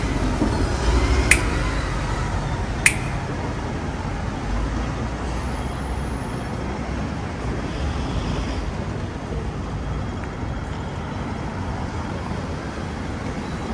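City street traffic: a steady rumble of passing vehicles, with two sharp clicks in the first three seconds.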